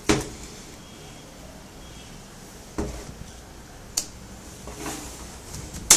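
A thin tool prying at a Lenovo G430 laptop's plastic panel by the hinge, giving a few separate sharp clicks of plastic on plastic: one at the start, two about a second apart in the middle, and one at the end.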